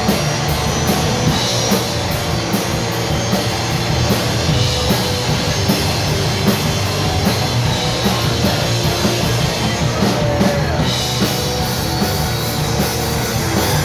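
Live rock band playing an instrumental passage, a drum kit driving a steady beat under guitars, with no singing.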